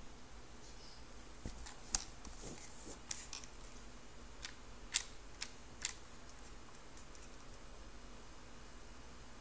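A pistol being handled: about ten light, sharp mechanical clicks in quick irregular groups over a few seconds, then stillness.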